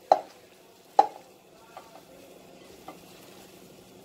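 Hand mixing oily, spice-coated knol khol chunks and leaves in a plastic-lined bowl: soft squishing and rustling with a few crackles, the sharpest near the start and about a second in, over a faint steady hum.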